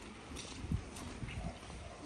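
Footsteps of a person walking, a few irregular low thumps over steady outdoor background noise.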